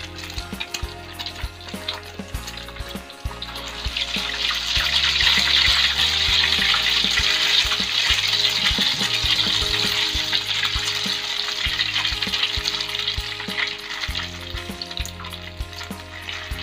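Egg-coated tapioca skewers deep-frying in hot oil in an aluminium wok, the sizzling swelling about four seconds in as the egg foams, staying loud for several seconds, then dying down.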